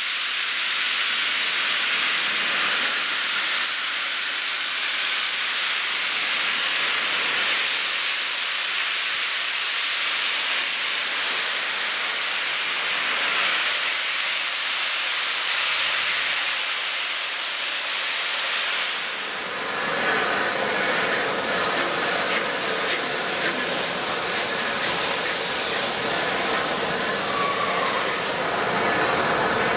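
A steam locomotive standing at a platform, blowing off steam with a loud, steady hiss. The hiss dips briefly about two-thirds of the way through, then carries on with more low-pitched sound beneath it.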